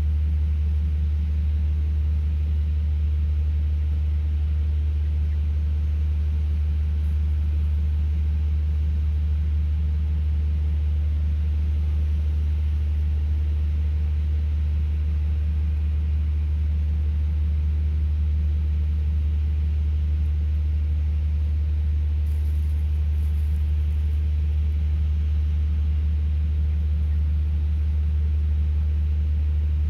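Steady low drone of a motor running at a constant speed, the pitch never changing.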